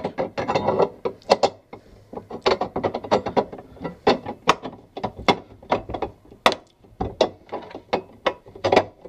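Rear mounting plate of a console lockbox being worked over its studs inside a pickup's centre console: a run of irregular, sharp clicks and knocks, about three or four a second, as the plate is handled and seated.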